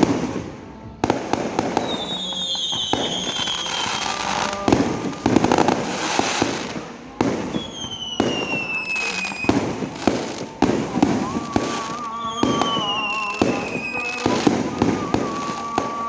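Fireworks going off in a rapid series of bangs and crackles, with three long falling whistles as whistling fireworks fly up.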